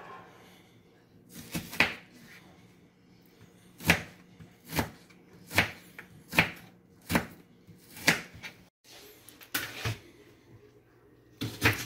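Kitchen knife chopping an onion on a plastic cutting board: single sharp chops a little under a second apart, with a few more knocks near the end.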